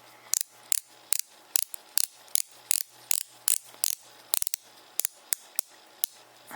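Stainless steel unidirectional rotating bezel of a Victorinox Summit XLT watch being turned, snapping round with a run of sharp ratchet clicks, about two to three a second.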